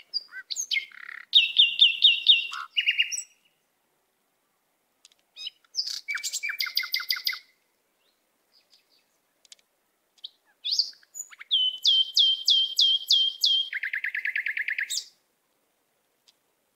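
A songbird singing in three phrases, each a quick series of repeated high whistled notes about five a second, with silence between the phrases; the last phrase ends in a faster, lower trill.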